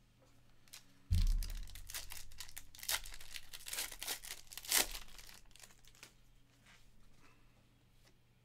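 Wrapper of a trading card pack being torn open and crinkled. It starts with a bump about a second in, crackles for about four seconds, then trails off.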